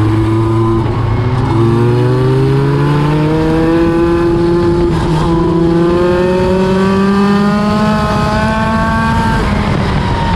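Midget race car engine running laps on the oval. Its pitch climbs steadily along the straightaway and drops when the driver lifts for the turns, once about five seconds in and again near the end.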